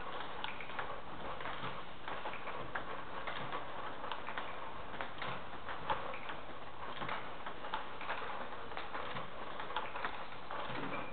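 Table tennis ball clicking off the bat and the table in a rally, a sharp tick about every half second at uneven spacing.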